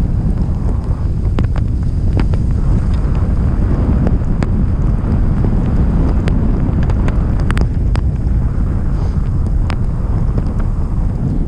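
Blizzard wind buffeting the microphone in a loud, steady rumble, with scattered sharp ticks throughout.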